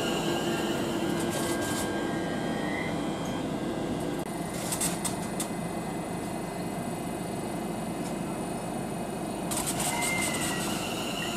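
Greater Anglia Class 720 electric multiple unit standing at the platform, its onboard equipment running with a steady hum and a high whine. A few sharp clicks come about five seconds in and again near the end.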